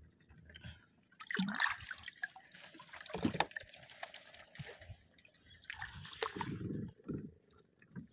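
Shallow water splashing and dripping as someone wades and moves through it by hand: irregular small splashes and drips, with a few stronger sloshes between quieter gaps.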